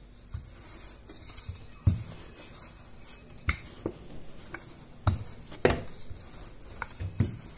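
Wooden rolling pin rolling out semolina dough on a counter: a soft rubbing with scattered knocks, the loudest about two seconds in.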